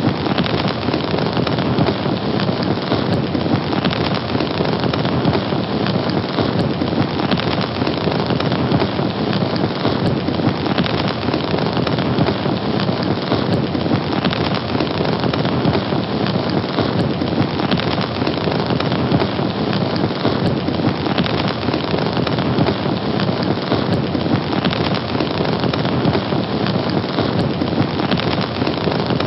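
Fire burning: a steady, dense hiss of flames that keeps an even level throughout.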